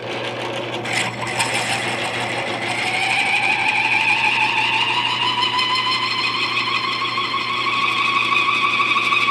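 A drill bit squealing against hardened steel over a steady motor hum, the squeal slowly rising in pitch; the bit is not cutting, because the steel is hardened and the bit is worn out.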